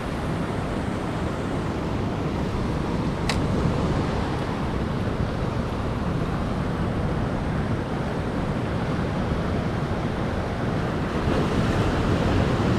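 Ocean surf washing steadily against a rocky cliff shore, with wind buffeting the microphone. A single sharp click comes about three seconds in, and the surge grows a little louder near the end.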